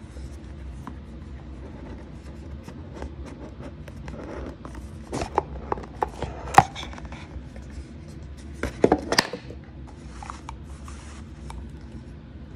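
Paperboard box being handled and opened by hand: fingers rubbing and scraping on the card, with a cluster of sharp taps and clicks about halfway through as the box flap is pulled open, and another quick flurry a few seconds later.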